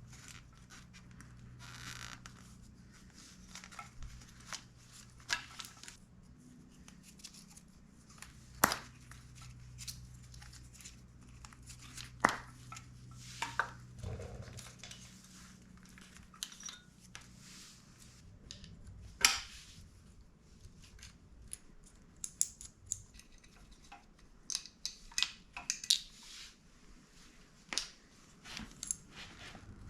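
Hand tools and metal motorbike parts clinking and knocking during disassembly, with sharp knocks about 9, 12 and 19 seconds in and a run of lighter ticks near the end. A low steady hum runs under the first half and then fades.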